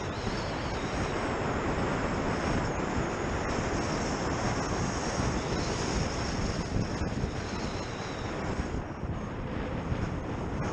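Steady rushing of a snowboard sliding and carving over snow, mixed with wind buffeting the action camera's microphone during a fast descent.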